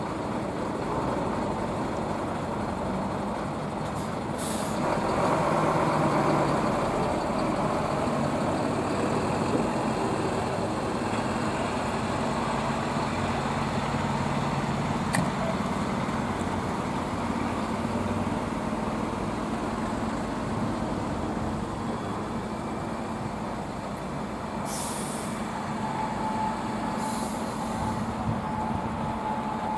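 A convoy of MAN emergency trucks and vans driving slowly past, their diesel engines running steadily and swelling as a heavy truck passes close. Short air-brake hisses come three times, once near the start and twice near the end.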